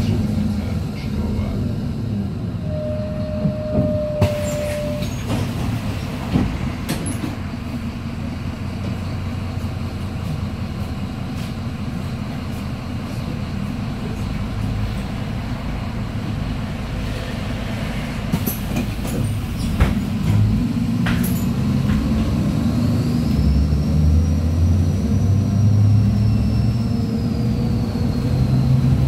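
MAZ 103.485 city bus with a Mercedes-Benz diesel and Allison automatic gearbox, idling at a stop and then pulling away, the engine growing louder near the end, with a faint high whine that rises and falls as it gathers speed. A steady beep lasts about two seconds some three seconds in, and several sharp clunks come from the doors and fittings.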